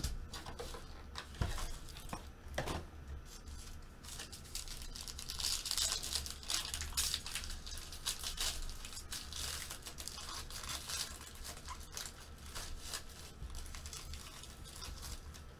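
A foil trading-card pack being torn open and its wrapper crinkled, most busily from about five to eleven seconds in, with scattered clicks and rustles of packaging and cards being handled.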